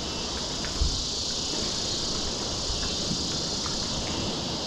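Steady, high-pitched chorus of insects. There is a brief low thump about a second in.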